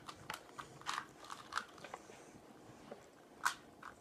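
Plastic clicks of a Rubik's cube's layers being turned by hand, a handful of irregular clicks with the loudest about three and a half seconds in.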